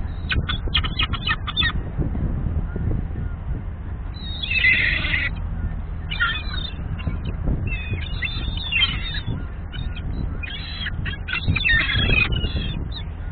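A flock of gulls squawking in repeated harsh bursts as they scuffle and flap among themselves. There is a quick string of calls at the start, the loudest burst about four and a half seconds in, and more bursts near the end. A steady low rumble runs underneath.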